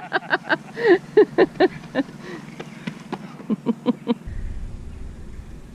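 A person's voice in short, rapid bursts without clear words, stopping about four seconds in; a quieter steady outdoor background follows.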